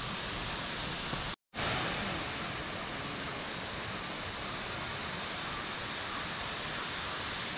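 Steady rushing of Bomburu Falls, a wide waterfall, broken by a brief silent gap about a second and a half in.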